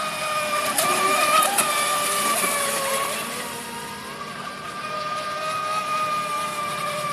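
Radio-controlled speed boat running flat out across the water, its motor giving a steady high-pitched whine.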